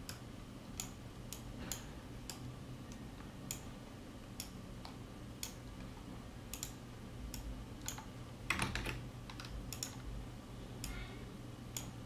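Faint, irregular clicks of a computer mouse and keyboard, a click every half second to a second, over a low steady hum.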